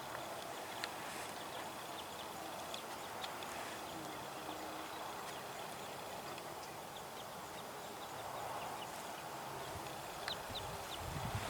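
Outdoor ambience: a steady hiss with scattered short, faint bird chirps. About ten seconds in, irregular low thumps or rustles begin and grow louder.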